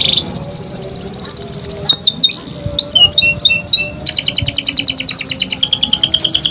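Domestic canary singing: a fast rolling trill, short rising swoops and chirps, then a second long rolling trill from about four seconds in.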